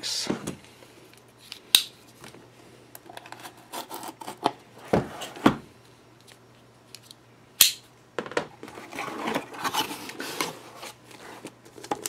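A cardboard product box handled and opened with a folding utility knife: a few sharp clicks and knocks, then several seconds of scraping and rustling as the cardboard and packaging are worked open.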